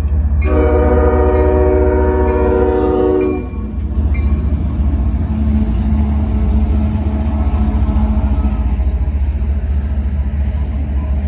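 Diesel locomotive air horn sounds one long chord of several notes for about three seconds. After it, the locomotive and train rumble steadily as they roll in slowly.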